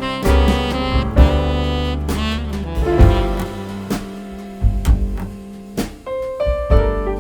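Background music: jazz with saxophone, piano, bass and drums.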